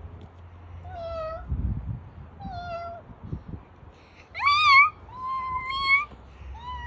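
A baby kitten meowing repeatedly: about five thin, high-pitched meows, the loudest a rising call about four and a half seconds in.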